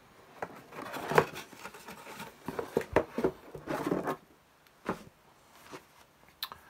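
Software manuals and their box being handled: rustling and a cluster of light knocks and clicks as the books are taken out one by one, then a few single clicks.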